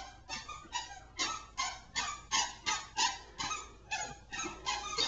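A toddler's squeaky shoes squeaking with each step, about two and a half squeaks a second in a steady rhythm.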